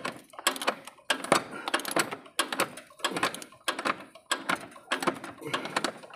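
Hand socket ratchet clicking in quick, irregular runs of strokes as a mount bolt is turned.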